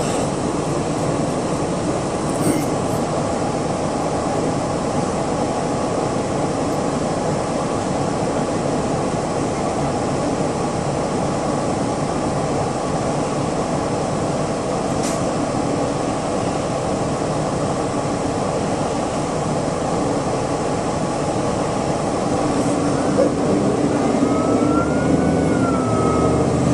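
City bus running, its engine and road noise heard from inside the cabin as a steady, unbroken rumble that grows a little louder near the end.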